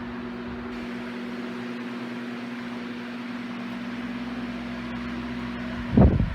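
Diehl G16512 16-inch oscillating table fan running on medium speed: a steady electric motor hum with an even rush of air from the blades. Near the end a much louder low rumble sets in.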